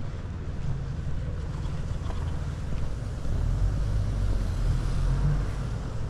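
Low rumble of city street traffic, growing louder about three seconds in.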